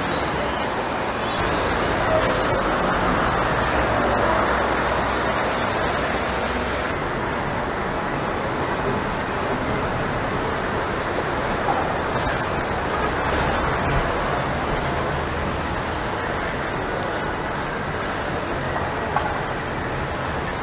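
Steady city street traffic noise, an even low rumble with a few faint clicks.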